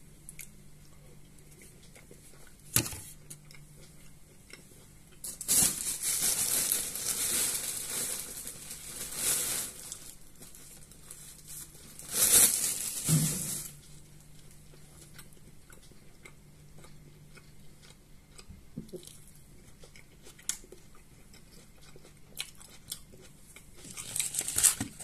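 Plastic food packaging crinkling and rustling in two spells: a long one from about five to ten seconds in and a shorter, louder one at about twelve to thirteen seconds. Faint crunchy chewing and small clicks fill the quieter stretches.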